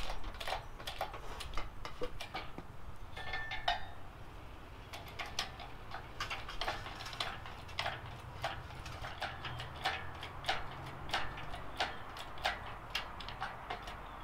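Hand-pumped hydraulic engine hoist being jacked up under a heavy cast-iron load: a steady run of light metallic clicks, about two or three a second, with a short squeak about three seconds in.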